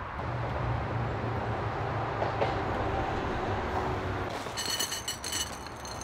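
French Toast Crunch cereal poured from the box into a bowl: a dense, crisp rattle of pieces hitting the bowl, starting about four and a half seconds in. Before it there is only a steady low rumble.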